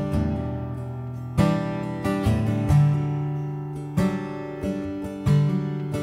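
Acoustic guitar strumming chords, a new chord struck about every second and a half and left to ring, with no singing.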